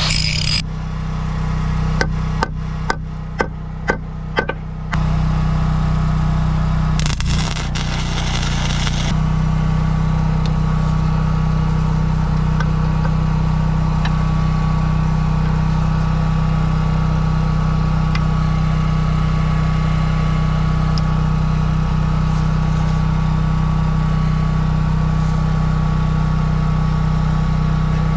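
A small engine runs steadily throughout. About two to five seconds in come a handful of sharp metallic taps, and around seven seconds a brief crackling hiss.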